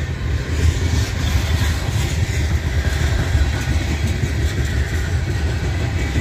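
Freight train's boxcars and covered hopper cars rolling past: a steady low rumble of steel wheels on rail.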